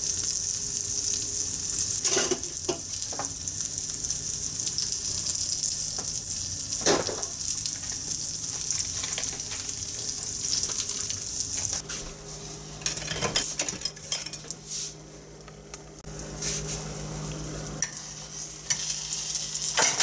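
Egg and red pepper ring frying in a pan, the fat sizzling steadily, with a few sharp clicks. The sizzle drops lower from about two-thirds of the way through.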